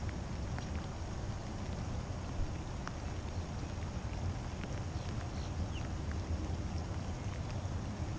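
Steady low rumble of wind buffeting the microphone, with scattered faint ticks and a brief high chirp about five and a half seconds in.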